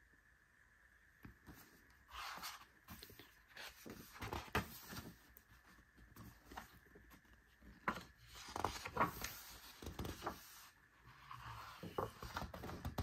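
Pages of a thick photobook being turned and handled: irregular paper rustles and swishes with soft taps as the heavy pages flip and settle, busiest a couple of seconds in and again around the middle.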